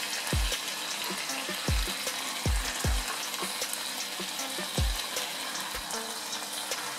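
Fish fillets sizzling in watery masala on a tawa while metal tongs turn them over, with several dull knocks of the tongs against the griddle.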